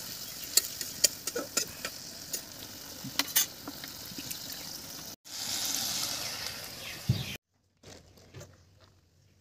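Hilsa fish curry sizzling in a metal karahi, with a metal spatula clicking and scraping against the pan. About five seconds in the sound breaks off and returns as a louder, denser sizzle. Near the end it falls to faint, scattered soft sounds.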